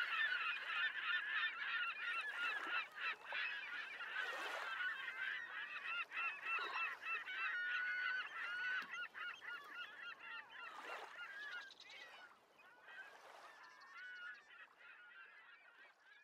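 A large flock of birds calling, many short calls overlapping in a continuous clamour, with a few brief whooshes; it fades away over the last few seconds.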